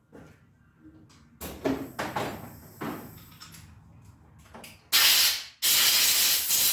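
Metal parts clattering, then two loud hissing spray bursts, the first about half a second and the second over a second long.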